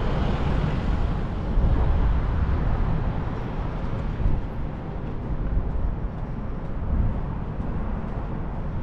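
Steady rumbling noise of road vehicles.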